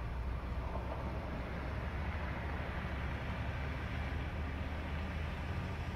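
Steady low rumble of highway road traffic, with no single passing vehicle standing out.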